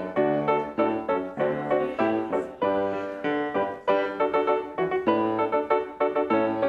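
Piano music: a steady run of struck notes, each fading before the next.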